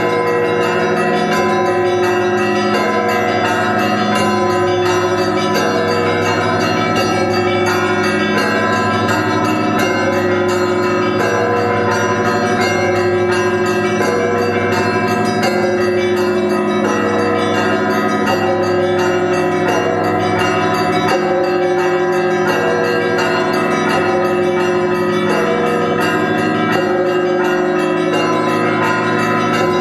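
Russian Orthodox monastery bells ringing in a continuous peal: several bells of different pitches struck again and again in a repeating pattern, their tones overlapping and ringing on.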